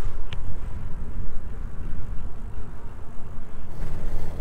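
Wind buffeting the microphone of a handlebar-mounted camera on a moving bicycle, a loud, uneven low rumble mixed with tyre noise from the paved path. Near the end a low steady hum joins in.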